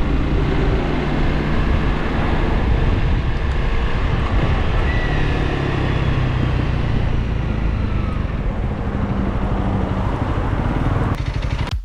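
Motorcycle on the move: engine running steadily under wind and road noise, cutting off suddenly just before the end.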